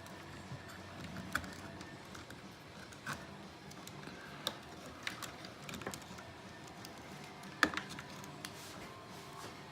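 Scattered small clicks and taps of parts and wires being handled during a pachinko machine teardown, irregularly spaced, the loudest a sharp click about three-quarters of the way through.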